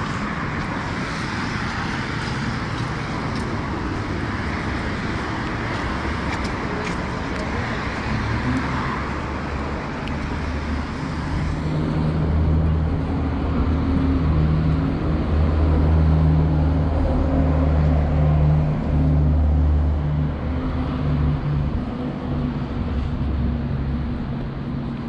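Traffic on a rain-wet city boulevard: car tyres hissing on the wet road. About halfway through, a deep, steady engine drone joins in and the sound gets louder.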